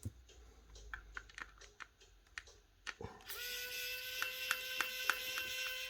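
A few light clicks of small tools on the phone, then about three seconds in a small electric screwdriver starts. It whines steadily with a regular ticking about four times a second while undoing the phone's small screws, then stops sharply near the end.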